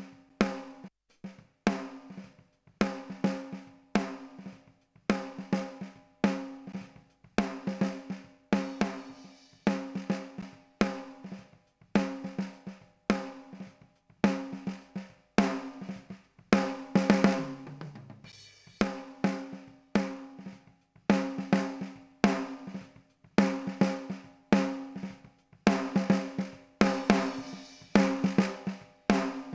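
Drum kit playing a steady beat, sharp hits about twice a second over ringing, pitched tones. A little past halfway the beat breaks briefly under a short falling low tone, then resumes.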